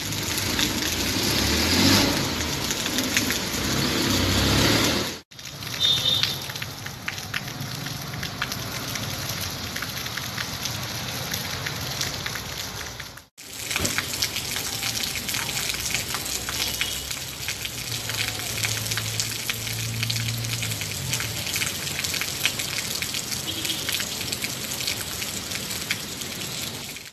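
Rain falling steadily on an asphalt street, a dense patter of drops on the wet pavement, with street traffic running underneath in the first few seconds.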